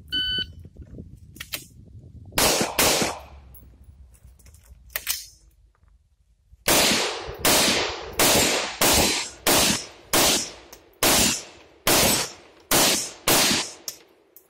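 A shot-timer start beep, then two pistol shots about two seconds later. After a pause of a few seconds comes a steady string of about a dozen rifle shots, roughly two a second, on a practical-shooting stage.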